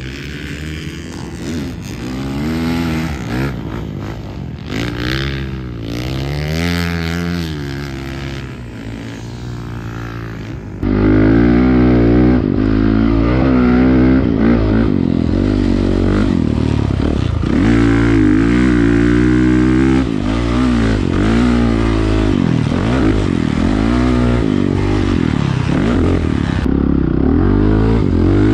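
Motocross bike engines revving up and down, fairly distant at first. About eleven seconds in, the sound turns suddenly louder and close: a 2017 Honda CRF450R's single-cylinder four-stroke engine, revving up and dropping back over and over as it is ridden round a dirt motocross track.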